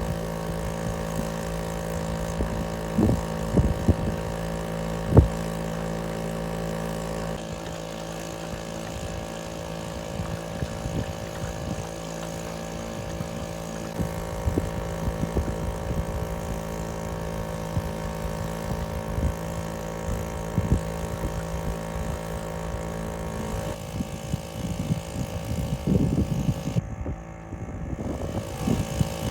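An engine running steadily at an even pitch, with a few sharp knocks in the first few seconds and rougher, more uneven noise toward the end.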